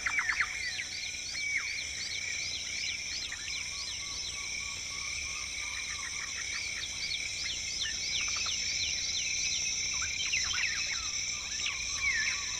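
Tropical rainforest ambience: a steady, shrill insect chorus, with many short, repeated down-slurred bird whistles and a few other bird calls over it.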